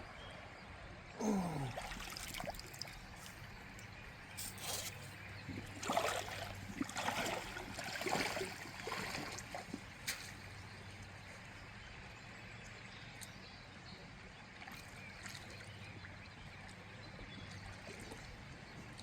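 Creek water trickling steadily, with a short falling tone about a second in and a run of louder irregular noises between about four and ten seconds in.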